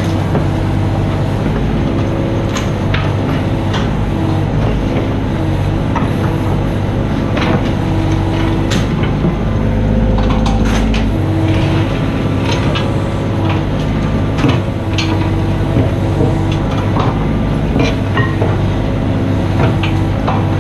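Mini excavator's diesel engine running steadily under work, with the hydraulics changing pitch and many short metallic clanks and knocks from the bucket and attachment working.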